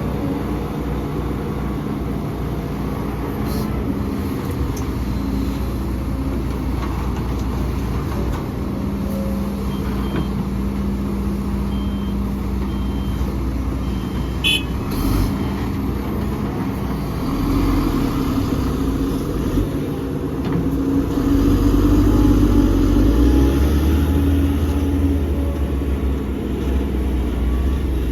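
Heavy diesel earthmoving machinery running steadily, with a few short high beeps about ten seconds in. The engines work harder, with a deeper, louder rumble, from a little past halfway.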